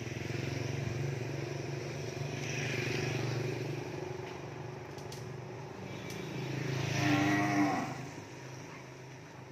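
Calves in the back of a truck mooing, with a louder, longer moo about seven seconds in.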